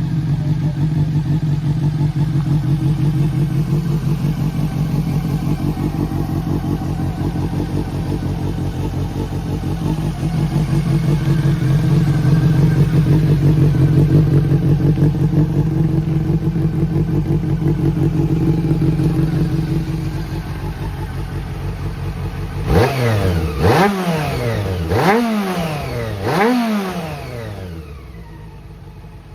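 Honda CB400 Four (NC36) inline-four motorcycle engine idling steadily, then blipped four times in quick succession, each rev rising sharply and falling back, before it settles to a quieter idle. The seller says it runs well with no abnormal noises.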